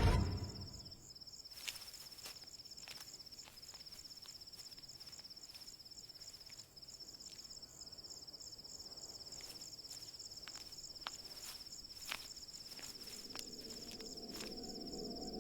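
Insects, crickets by the sound of it, trilling in a steady high-pitched pulsing chorus, with a few faint clicks scattered through it.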